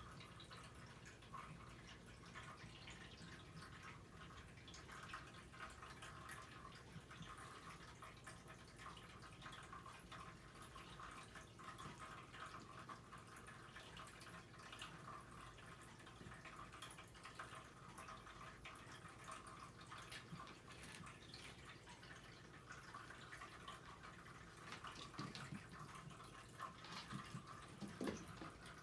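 Near silence: faint room tone with scattered soft ticks and taps, a little louder near the end.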